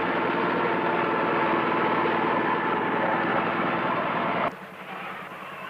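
Boat engine running steadily with a fine, even pulsing beat, cut off suddenly about four and a half seconds in to a much quieter background.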